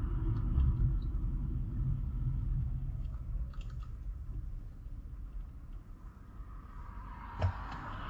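Low rumble of a car's tyres and road noise, growing quieter as the car slows down over about six seconds, with a few light ticks and one sharp click about seven seconds in.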